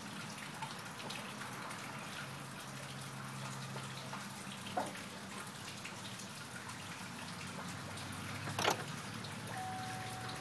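2009 Chevy Silverado's 5.3L Vortec V8 running just after startup, with a fast, drip-like ticking over a steady engine hum; the owner does not know what causes the tick. Two louder sharp clicks stand out, about five seconds in and near the end.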